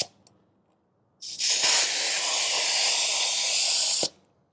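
Pressurized air hissing out of a tire valve stem as a hose quick-connect coupler is pushed onto it before it seals. One steady hiss of about three seconds starts about a second in and cuts off sharply.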